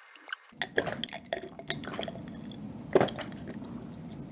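Ice clinking against a glass mug of iced coffee as it is picked up, then drinking sounds with sharp clicks and one louder knock near the end.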